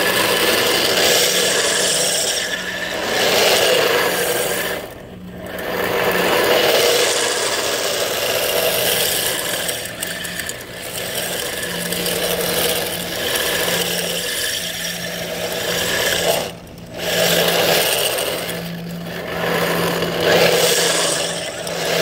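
3Racing RC drift car driving and sliding on coarse asphalt: a continuous rasping, rattling scrape from its hard plastic wheels on the road, swelling and fading as it turns. The sound drops out briefly twice, about five seconds in and again about seventeen seconds in.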